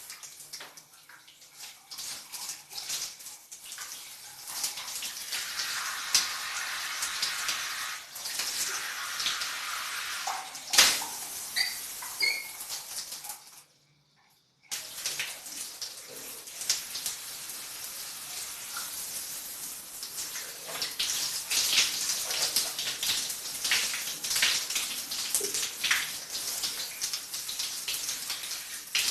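Shower water falling and splattering, uneven with many small splashes and spatters, quieter for the first few seconds. The sound cuts out completely for about a second near the middle, then resumes.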